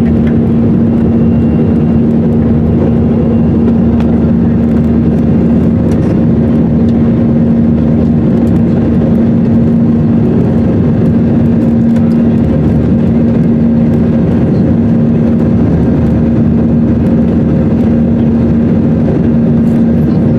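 Airbus A319 cabin noise in the climb just after takeoff: the jet engines and airflow make a loud, steady rushing roar, with a steady low hum running under it.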